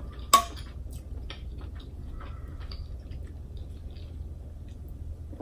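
A sharp clink about a third of a second in, then scattered soft ticks of ice in a glass as the drink is lifted and sipped through a straw, over a steady low hum.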